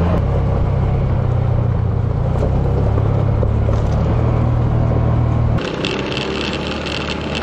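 Off-road vehicle engine running steadily under load, with a strong low drone. About five and a half seconds in, the low engine note drops away abruptly and a higher hiss and rattle take over.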